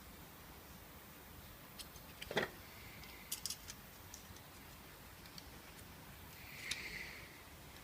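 Faint handling noises of brake pads and tools: a soft knock about two and a half seconds in, a few light clicks just after, and a short rustle near the end.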